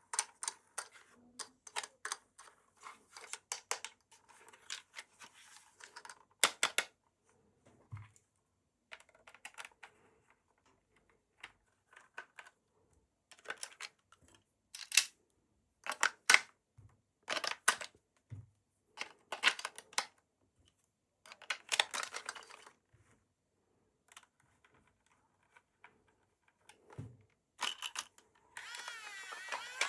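Hands unboxing and handling toys: sharp plastic clicks, taps and short crinkles of packaging, thick in the first few seconds and then in scattered bursts. A steady buzzing tone starts near the end.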